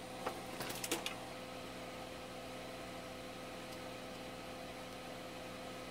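Steady low hum with a hiss, made of several even tones, with a few light clicks in the first second as small parts or tools are handled.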